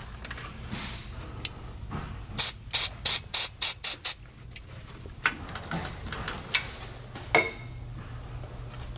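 Aerosol can of electrical contact cleaner giving a quick series of about six short sprays onto a brake pad wear sensor's wiring connector, wetting its dry seal so the connector will go together. A few sharp clicks follow as the connector is worked and pushed home.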